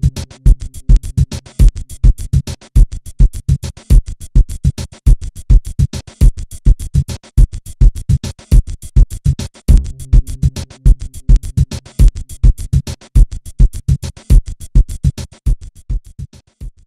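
Electronic background music with a fast, steady drum-machine beat and low bass notes coming in for a few seconds at a time, dying away at the end.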